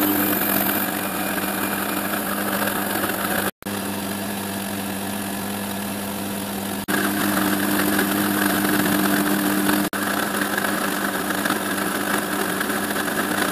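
Milling machine spindle running a 20 mm high-speed steel slot drill across a metal plate, a steady motor hum with cutting noise as it skims the plate flat in a light facing pass. The sound breaks off for an instant three times, about three and a half, seven and ten seconds in.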